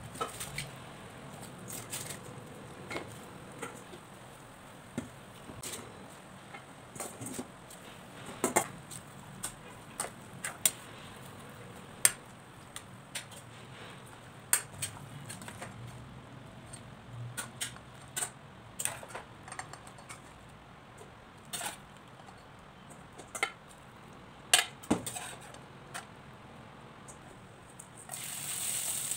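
A metal spoon clinking and knocking irregularly against a stainless steel pot as cabbage is stirred in water. Near the end, sizzling starts as chopped red chilies and garlic go into hot oil in a frying pan.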